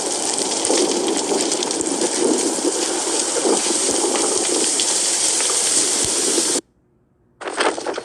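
Steady, loud rushing noise, like wind or spraying water, that cuts off suddenly about six and a half seconds in. After less than a second of near silence, a choppier rushing noise starts.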